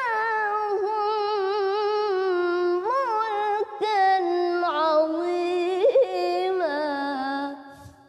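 A woman's voice reciting the Quran in the melodic tilawah style: one long, ornamented phrase with vibrato and quick turns, stepping down in pitch and fading out near the end.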